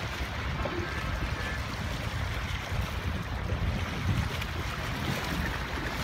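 Wind buffeting the microphone over the wash of water, a steady low rumble.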